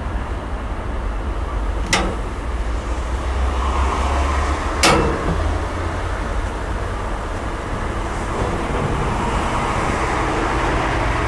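Steady low rumble of a heritage steam train running along the track, with two sharp clicks about three seconds apart.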